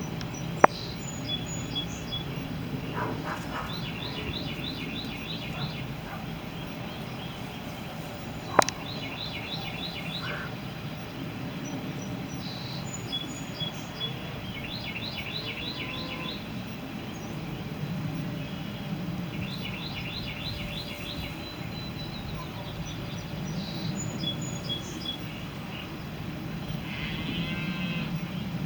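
A songbird singing a short phrase of quick high notes, repeated every few seconds, with a few thin high chirps, over a steady low background rumble. There are two sharp clicks, one near the start and a louder one about eight and a half seconds in.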